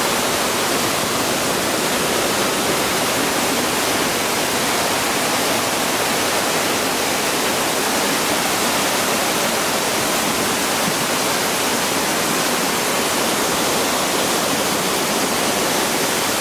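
Heavy downpour and a flash-flooded stream of muddy water rushing down a narrow channel, a steady, even wash of water noise.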